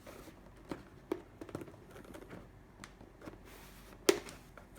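Cardboard packaging being handled and opened: scattered light taps, scrapes and clicks, with one sharper knock about four seconds in.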